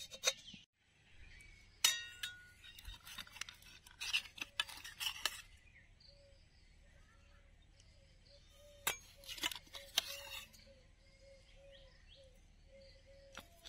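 Steel ladle and serving bowl clinking and scraping against stainless-steel pot and plate while crab curry is dished out onto rice. A single sharp, ringing clink comes about two seconds in, followed by two clusters of quick clinks.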